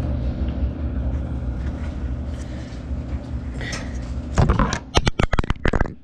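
A steady low rumble, then a quick run of about eight clattering knocks over a second and a half near the end, from objects being handled at the washing machine's drain-filter hatch.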